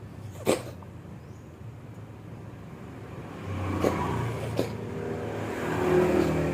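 A cat gives one sharp, short cough about half a second in. From about halfway a low, steady motor drone comes in, with a few faint clicks over it.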